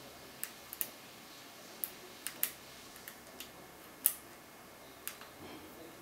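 Lock pick working the pins of a pin-tumbler door cylinder under a tension wrench: a scatter of small, sharp metallic clicks, about ten in all and irregularly spaced, the loudest about four seconds in.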